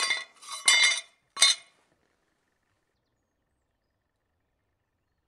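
Flat leaf cutouts of 3 mm steel plate clinking together in three ringing metallic clinks within the first two seconds.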